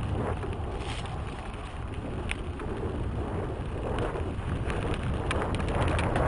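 Wind rumbling on a helmet camera's microphone as a mountain bike rides fast over a dirt singletrack, with tyre noise on the dirt and a few sharp clicks and rattles from the bike over bumps.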